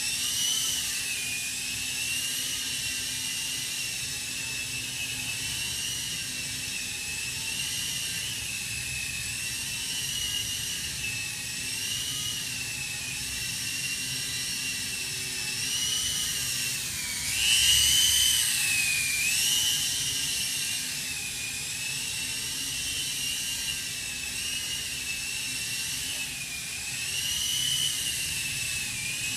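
Toy remote-control helicopter's small electric motors and rotors whining in flight, a high whine that dips and rises in pitch as the throttle changes. A little past the middle it climbs to its highest and loudest.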